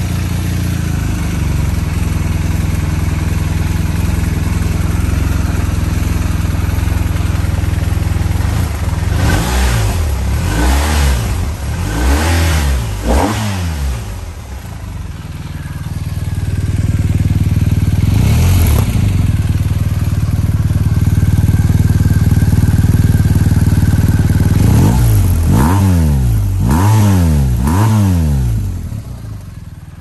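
BMW R1250R's 1254 cc boxer twin on its stock exhaust, idling and blipped on the throttle. There are four quick revs about nine to fourteen seconds in, one near eighteen seconds and three more near the end, each rising and dropping back to idle. The idle is louder from about sixteen seconds in and falls off again just before the end.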